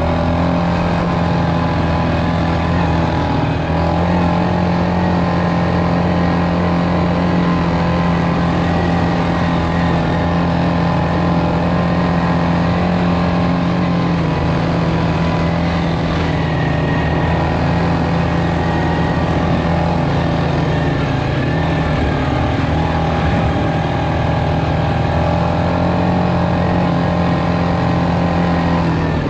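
ATV engine running as the quad is ridden along a trail at a steady pace. The engine note mostly holds level, with small dips and rises as the throttle is eased and opened again.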